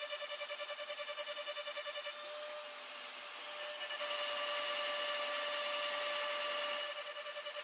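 CNC milling machine running an end mill through aluminium, a steady whine with a fast, even pulsing. About two seconds in the pulsing stops and the sound drops for a moment. It then runs louder, steadier and hissier for about three seconds before the pulsing cut sound returns near the end.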